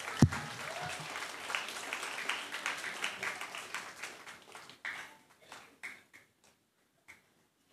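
Audience applauding, dense for about four seconds, then thinning to scattered claps that die out. A sharp microphone thump comes just after the start, as the handheld mic is set into its stand.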